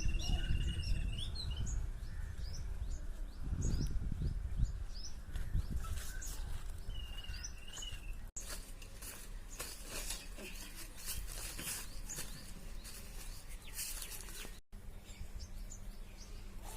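Small birds chirping in short rising calls, over a low rumble in the first half. After a cut, scattered clicks and rustling.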